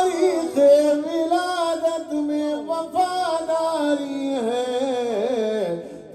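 A man singing a long, ornamented melodic line of an Urdu manqabat verse, holding and bending the notes.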